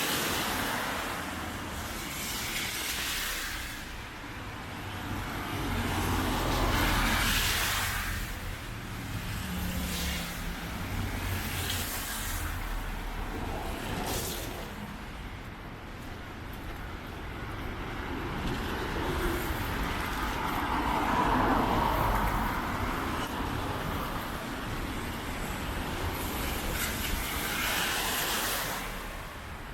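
Road traffic on a rain-soaked street: several cars pass one after another, each a rising and fading hiss of tyres on the wet road, over a low steady rumble.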